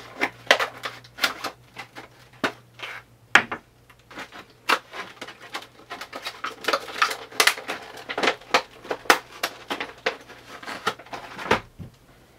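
Stiff plastic blister packaging crackling and clicking by hand, with irregular sharp clicks and small knocks as aluminum LED flashlights are worked free of it.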